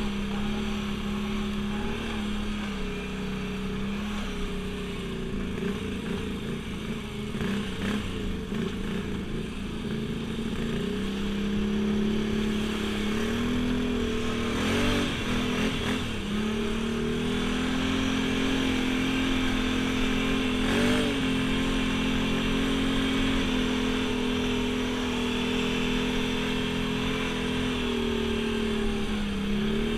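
ATV engine running under way at a steady cruise, picking up speed about a third of the way in, dipping briefly in pitch twice in the middle, and easing off near the end.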